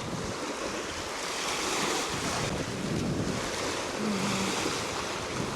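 Black Sea waves breaking and splashing on the shore, one after another, with wind buffeting the microphone.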